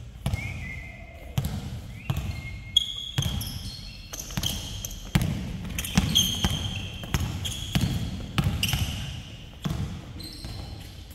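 Basketball being dribbled on an indoor court, with irregular bounces about every half-second to second. Short high sneaker squeaks come in between the bounces.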